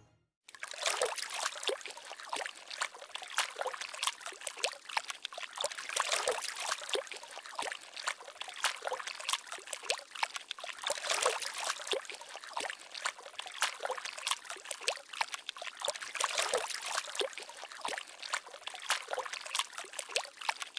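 Water splashing and sloshing in a plastic kiddie pool as a puppy paddles through it, in quick, irregular little splashes.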